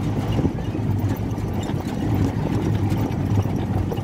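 Auto-rickshaw engine running steadily as the three-wheeler drives along, a continuous low drone heard from inside the open cab.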